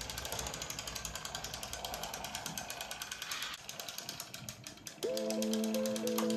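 Rapid, even mechanical clicking, about ten clicks a second, like a small geared toy mechanism ratcheting. About five seconds in, louder held music notes come in.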